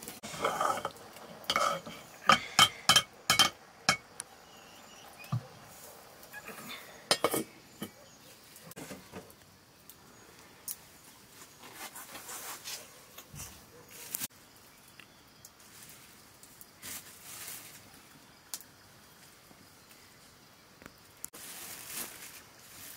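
Metal pot lids and dishes clinking and clattering: a quick run of sharp clinks a couple of seconds in, then scattered lighter knocks. Near the end, a plastic bag rustles.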